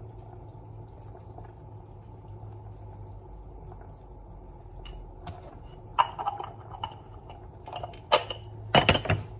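Small kitchen clinks and taps of utensils against a dish over a steady low hum. They start about five seconds in, come singly and in quick pairs, and the loudest arrive near the end.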